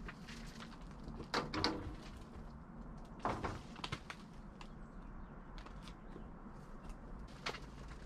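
Plastic seed trays full of soil being slid and lifted on a wooden bench: scattered light clicks and a few louder knocks and scrapes, the biggest about a second and a half and three seconds in, over a steady low hum.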